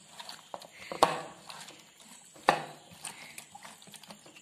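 Hands swishing cauliflower florets through turmeric-and-salt water in a plate to wash them: irregular sloshing and small splashes, with two louder splashes about a second in and about two and a half seconds in.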